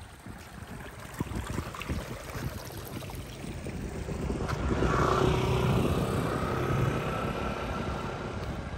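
A motor vehicle approaching and passing close by. Its engine hum grows to its loudest about halfway through, then slowly fades.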